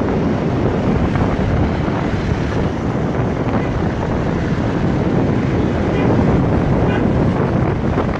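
Wind rushing over the microphone of a phone carried on a moving motorbike: a steady, loud rumble, with road and traffic noise mixed in.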